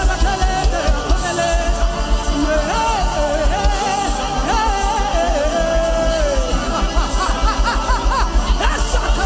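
Worship music with a fast, steady low beat, and a voice singing long, wavering held notes over it without clear words.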